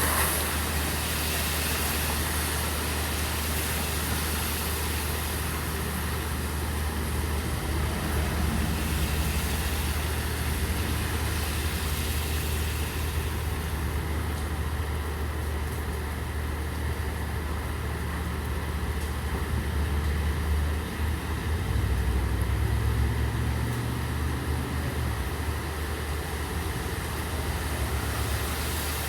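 Steady rain hiss over the low, continuous hum of an idling vehicle engine, likely a truck; the engine hum swells briefly past two-thirds of the way through, and the rain's higher hiss softens about halfway.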